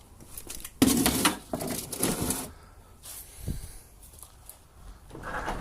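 Heavy scrap being handled: a sudden bang about a second in, then rattling and scraping, and a low thump a little past the middle.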